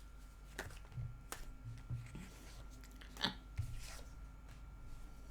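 A handful of faint, sharp clicks, about five scattered over a few seconds, over a low steady hum.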